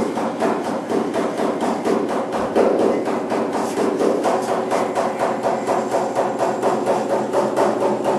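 Oxyacetylene torch flame melting a stick of body lead onto tinned sheet steel, with an even rapid pulsing of about five beats a second.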